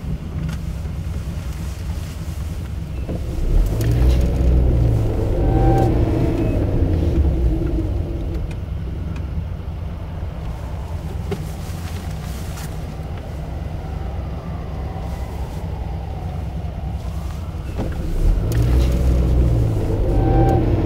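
Road and engine noise heard from inside a moving car: a steady low rumble that swells louder twice, about four seconds in and again near the end.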